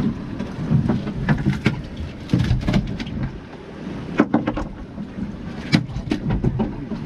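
Wind buffeting the microphone and choppy water slapping a small boat's hull, a continuous rough rumble, with a dozen or so sharp knocks and clatters from gear on deck scattered through it.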